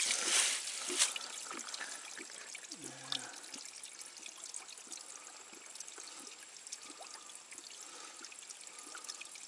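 Water splashing and trickling in a shallow spring-fed basin as a hand works under the surface around a hose end. The splashing is sharpest in the first second, then settles to a steady trickle.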